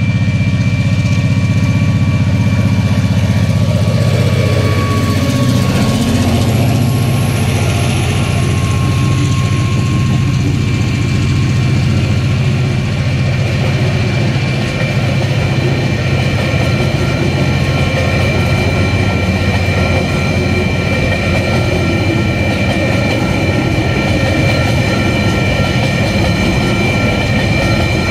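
TasRail diesel locomotives led by DQ 2012 pass under power with a heavy low engine rumble, followed by a long string of loaded container wagons rolling steadily past. Level crossing warning bells ring continuously over the train noise.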